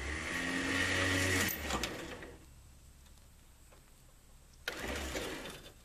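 Truck winch running in two bursts, a longer pull at the start and a short one near the end: a motorised whirr with a steady whine, drawing the cable taut against the bent mower deck.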